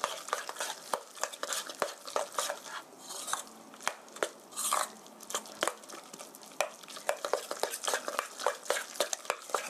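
Ground pork and egg mixture being stirred with a utensil in a stainless steel mixing bowl: rapid, irregular clicks and taps of the utensil against the metal bowl.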